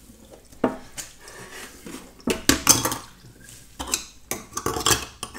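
Metal drain strainer clinking and knocking against a stainless steel kitchen sink: a run of sharp metallic clatters, busiest in the second half.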